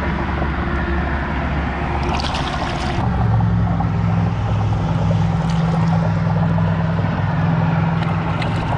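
Steady low engine drone, its hum strengthening about three seconds in, with light water splashing and trickling as a stringer of caught sheepshead is moved in the shallows.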